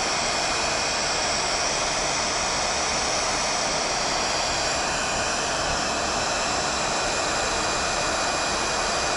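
Electric heat gun running steadily, a constant rush of air with a thin steady whine.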